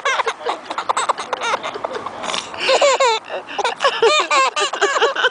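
A baby laughing in a string of short, high-pitched giggles.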